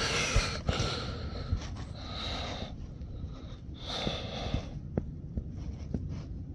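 A person breathing and sniffing close to the microphone, with two long breaths about two and four seconds in and a few faint clicks near the end.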